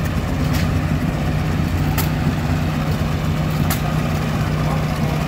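Vintage hit-and-miss stationary gas engines running: a steady low hum with sharp clicks at uneven intervals, one every one to two seconds.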